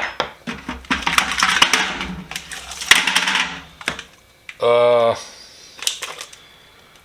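Loose metal hand tools clinking and rattling together as they are rummaged through in a toolbox: a dense clatter of small clicks for a few seconds.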